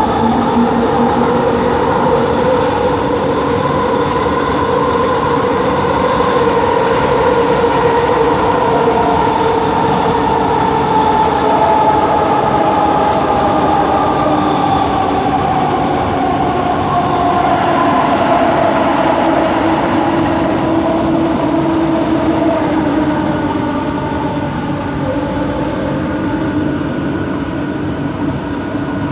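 Bombardier Innovia ART 200 metro train running, heard on board: the rumble of the ride under the whine of its linear induction motors. The whine is several tones at once that drift slowly in pitch, one sliding down over about ten seconds midway, and the whole sound eases slightly near the end.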